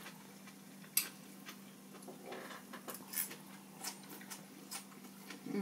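Metal chopsticks clicking and tapping against ceramic bowls at irregular moments, the sharpest click about a second in. A faint steady low hum runs underneath.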